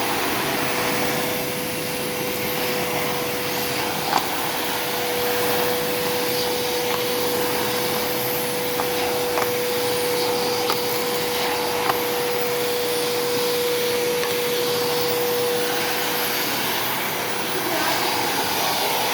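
Aerus wet-pickup vacuum cleaner running steadily, its motor giving a constant whine at one pitch, with a few faint clicks here and there.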